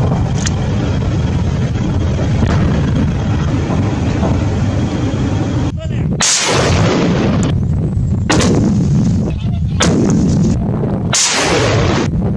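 Steady loud rushing noise, then after a cut a truck-mounted multiple rocket launcher firing rockets one after another from about six seconds in: about four launch blasts, each lasting around a second.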